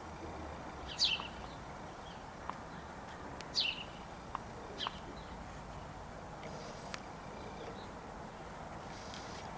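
A small bird giving three short, high chirps that sweep downward in pitch, about a second in, near the middle, and just after.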